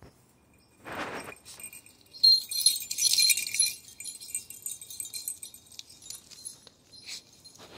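Metal collar tags on a dog jingling for about a second and a half as the dog trots up close, then more faintly. A dull thump comes about a second in.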